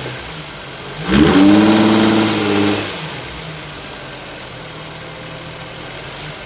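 2005 Infiniti FX35's 3.5-litre VQ V6 engine, which has a spun bearing, idling; it is revved once about a second in, held for under two seconds, then drops back to idle.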